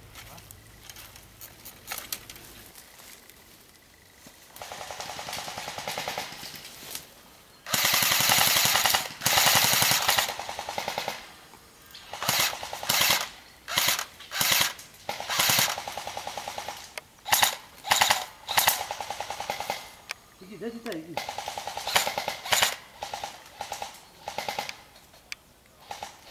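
Bursts of automatic airsoft gunfire. The longest run comes about eight to eleven seconds in, followed by many short bursts in quick succession.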